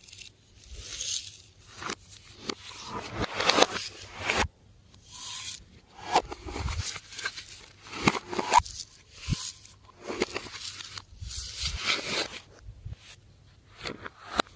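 Slime being squished, pressed and stretched by hand: sticky crackling, clicking and tearing sounds in irregular bursts about every second.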